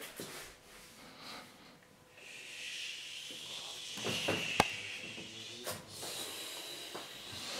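A person's breathy hissing right at the microphone, starting about two seconds in, with one sharp click about halfway through.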